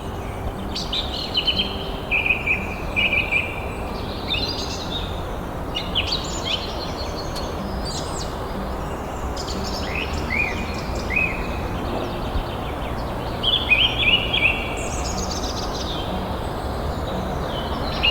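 Songbirds chirping and calling in quick clusters of short notes, with pauses between phrases, over a steady background hiss.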